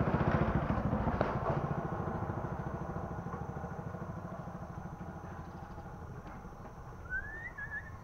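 Motorcycle engine running with a rapid, even pulsing, loudest at the start and fading steadily away. A short rising chirp about seven seconds in.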